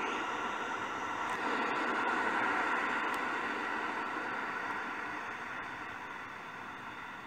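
Ocean surf washing on a shore: a steady hiss that swells about two seconds in and then slowly fades.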